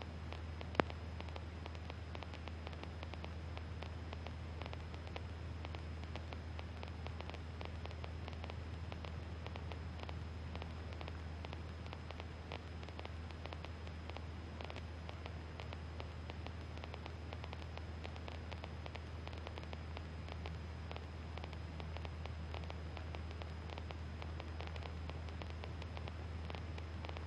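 Steady hiss and low hum of a light airplane's intercom and radio audio between transmissions, with the engine's drone faint underneath. There is a single click about a second in.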